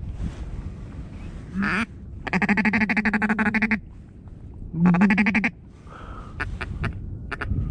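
Loud duck quacking: a single quack, then a fast run of quacks lasting about a second and a half, then a shorter run. A few sharp short clicks follow near the end.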